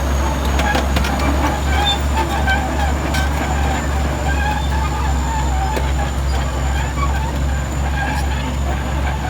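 Bulldozer's diesel engine running steadily under load, with scattered squeaks and clanks from its steel tracks.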